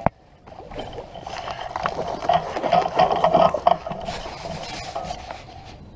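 Fishing reel being cranked as a hooked carp is brought in, a fast irregular run of small mechanical clicks and rubbing that is busiest in the middle and eases off near the end.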